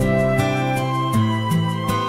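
Background music: slow, gentle melodic music with sustained notes and a light steady beat.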